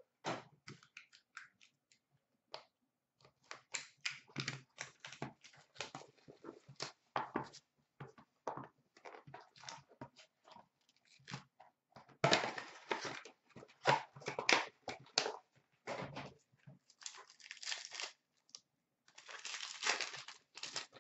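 Upper Deck Contours hockey card box being torn open by hand and a pack unwrapped: irregular tearing and crinkling of cardboard and wrapper in loose bursts, densest about twelve seconds in and again near the end.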